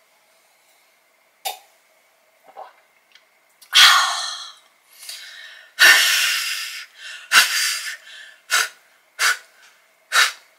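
A woman's loud breathy exhalations after a gulp of beer: three long ones, then four short sharp breaths about a second apart.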